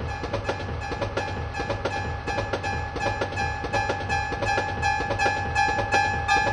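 Train running, with a steady horn tone held over a regular rhythmic clickety-clack of wheels on the rails.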